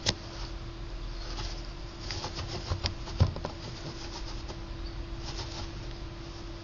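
Pet gerbil scratching and gnawing at a piece of orange: soft scratchy rustling with a few sharp clicks, the loudest about three seconds in.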